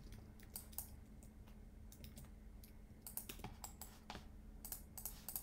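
Faint, scattered clicks of computer keyboard keys, a few bunched together in quick runs, over a faint steady hum.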